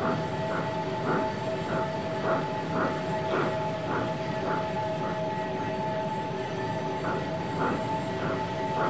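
Steam locomotive chuffing at a slow, steady pace, about two puffs a second, over a steady hum with two held tones.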